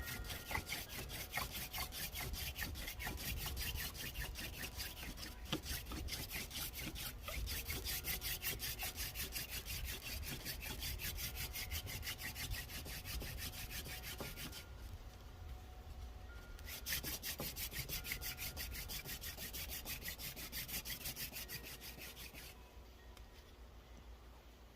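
Mullein-stalk hand-drill spindle twirled back and forth between the palms in a wooden hearth board: steady, rhythmic wood-on-wood rubbing as the hearth is warmed up before the drilling passes. It breaks off briefly about two-thirds of the way through, then resumes and fades out near the end.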